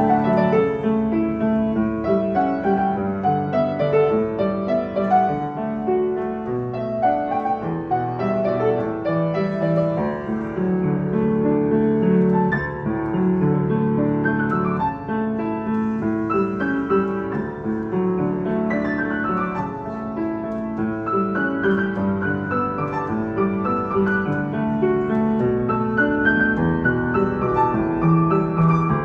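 Kawai KL-70W upright piano, built in 1987, played in a continuous flowing passage of chords and melody, with quick upward runs in the treble now and then.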